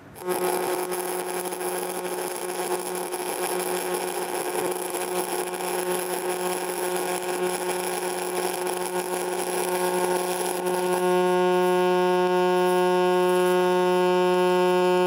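Aluminum MIG (GMAW) welding arc with the heat turned up during the bead. At first it is crackly and aggressive, with spatter: short-circuit transfer from too little heat for the wire feed. About 11 seconds in it changes suddenly to the steady, buzzing hum of true pulse-spray transfer, a little louder.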